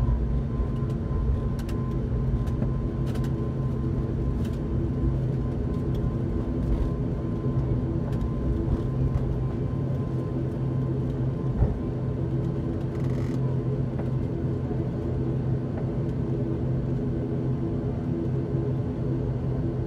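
ATR 72-600 cabin noise from its Pratt & Whitney PW127 turboprop engines and six-bladed propellers at taxi power: a steady drone with low, even propeller tones running under it. One short knock sounds about twelve seconds in.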